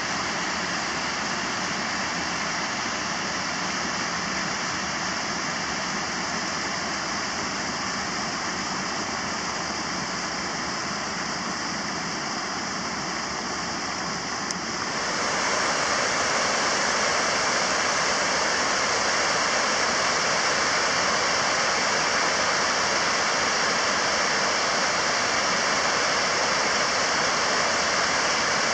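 River water rushing over a low weir on the rain-swollen Júcar, a steady noise of water. About halfway through it jumps to a louder, fuller rush.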